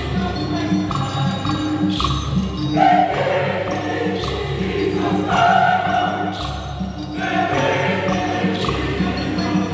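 A large mixed choir sings an Igbo choral anthem in parts, held notes shifting together, over a steady rhythmic drum and percussion accompaniment.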